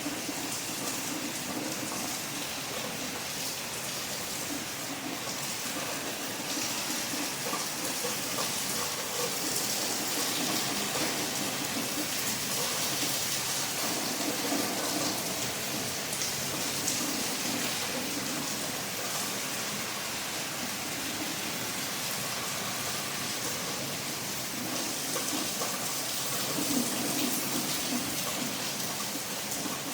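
Steady rain falling on a surface, an even hiss that swells a little louder for a while and eases again.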